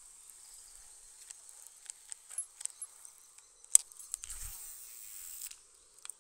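Insects chirring steadily in a high, even tone. Scattered sharp clicks and a loud snap come near the middle, followed by about a second of hissing rustle.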